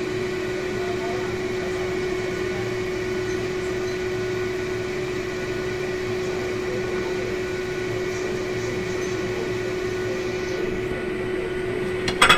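A pot of mustard greens boiling hard on a stove, heard as a steady rush of bubbling with a constant hum underneath. Near the end there is a brief loud metallic clatter against the pot.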